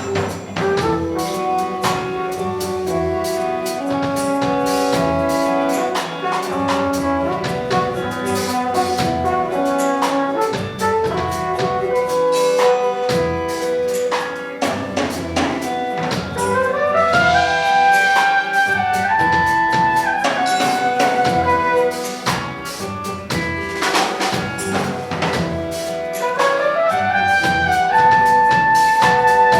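Brass band with drum kit playing an up-tempo piece: horns in harmony over a steady beat. Twice, about halfway through and near the end, the horns climb in a rising run to a held high chord.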